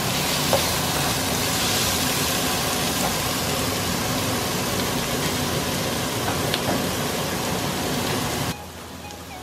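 Chopped cabbage, carrot and onion sizzling in oil in a nonstick wok as they are stir-fried: a steady frying hiss with a few light clicks of the spatula. About a second before the end the sizzle drops suddenly to a much quieter level.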